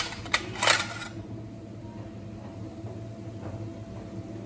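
Small plastic spice containers clattering as they are separated and handled, a short burst of knocks about half a second in, then only a steady low hum.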